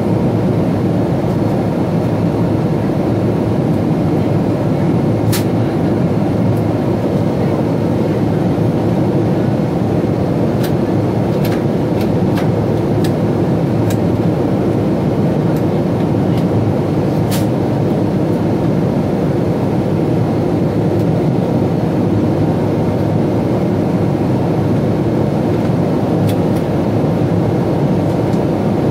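Steady cabin roar of airflow and engines inside a Boeing 777-200ER in flight, with a few faint clicks and rattles scattered through it.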